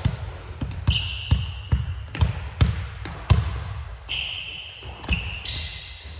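A volleyball bouncing repeatedly on a hardwood gym floor, about two bounces a second, with short high sneaker squeaks on the court in between.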